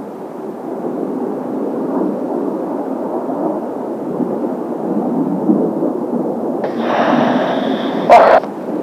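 Jet noise from Kawasaki T-4 jet trainers' turbofan engines, a steady rumbling roar. About seven seconds in it grows louder and brighter, with a brief sharp crackle just after eight seconds.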